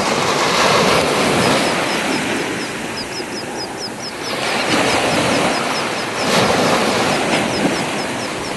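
Churning, rushing water of a boat's wake: a loud, steady wash of noise that swells and eases, with no clear engine tone. Faint rapid high chirps sound through it twice.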